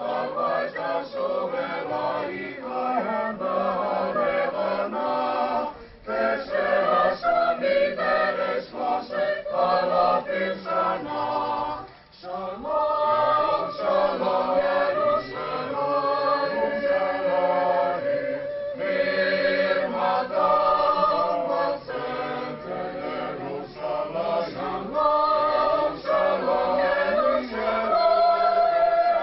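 Mixed choir of men's and women's voices singing in sustained phrases, with brief pauses between phrases about 6 and 12 seconds in.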